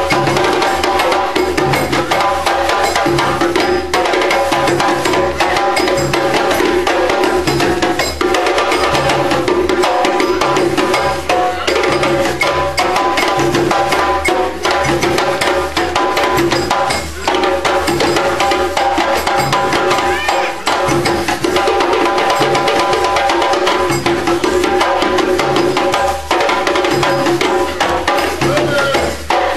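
Live ensemble music: hand drums and percussion beat a steady, repeating rhythm under long held tones.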